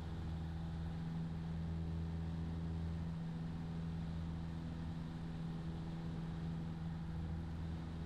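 Piper PA-28 Cherokee Warrior's four-cylinder engine and propeller droning steadily in flight, a constant low hum with no change in power.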